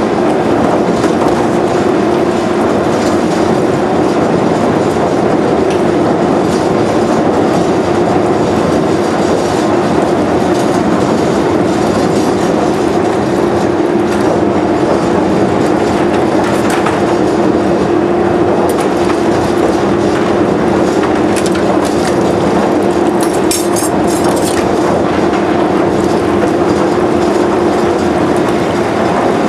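Power Soak pot-and-pan washer running: its pump drives the soak tank's water in a continuous churning current, a loud, steady wash of moving water over a constant hum. A few brief clinks in the second half.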